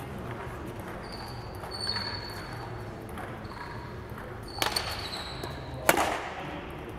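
Badminton racket hitting the shuttlecock: two sharp hits about a second apart in the second half, the second louder, the serve and the return opening a rally.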